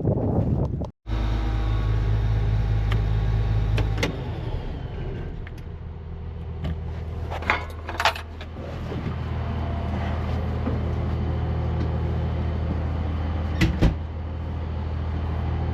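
Vehicle engine running steadily with a deep, even hum. Its note shifts about four seconds in, and a few sharp clicks and knocks come over it.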